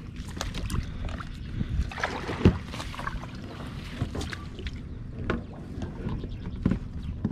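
Double-bladed kayak paddle strokes through a duckweed-covered, weedy swamp: irregular splashes and swishes with scattered knocks, one sharp knock about two and a half seconds in.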